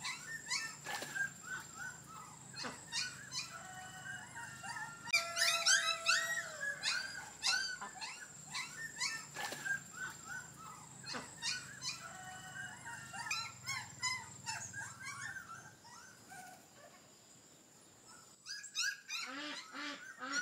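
Dogs whining in many short, high cries that rise and fall, with a lull shortly before the end.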